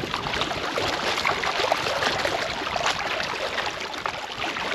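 Small waves lapping and splashing against the rocks of a riprap lakeshore, a steady wash of water full of small irregular splashes.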